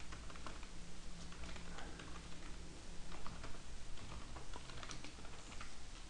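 Typing on a computer keyboard: a run of irregular key clicks, over a faint steady low hum.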